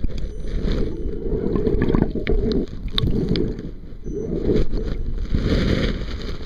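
Creek water churned by a Traxxas Summit RC crawler, heard muffled from a camera down in the water. It comes as uneven rushing, sloshing surges, with a few sharp clicks near the middle.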